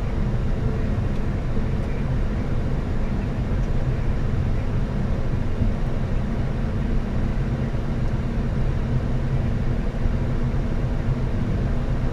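Steady low drone on a Boeing 737 MAX flight deck during pushback, with a hum of several steady low tones and no change in level.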